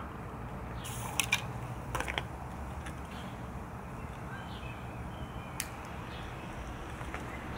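A few sharp clicks and knocks as a bowl is set down and a butane torch lighter is handled, over a steady low background rumble.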